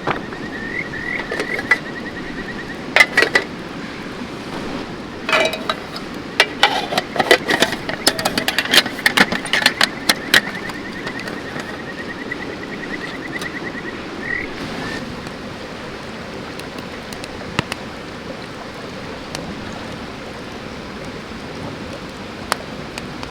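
A run of light clinks and knocks from camp utensils, bunched in the first half, over a steady rushing background from a mountain stream. A high, rapidly pulsing trill sounds on and off in the background.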